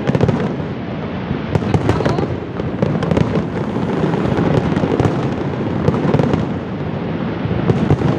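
Large aerial fireworks display going off in a continuous barrage: many shells bursting close together, with dense crackling and no pauses.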